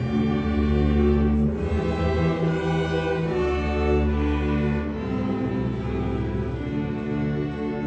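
Orchestral background music led by bowed strings, with sustained notes changing every second or so.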